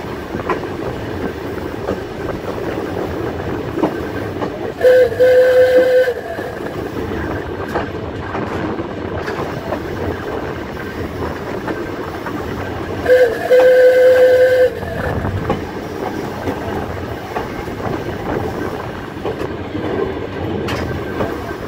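Volk's Electric Railway car running along its narrow-gauge track, wheels rattling on the rails. Its warning horn sounds twice, each steady blast about a second and a half long, about five seconds in and again about eight seconds later.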